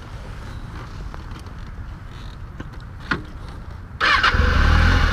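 Motorcycle engine starting about four seconds in and then running at a steady idle, with a low pulsing rumble.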